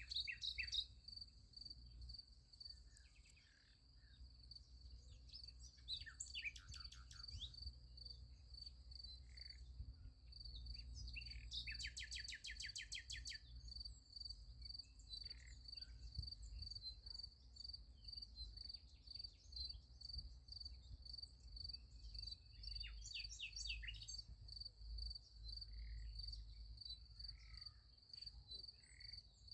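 Crickets chirping in a steady, fast even pulse, with birds calling now and then over them, including a rapid trill about twelve seconds in. A low rumble runs underneath.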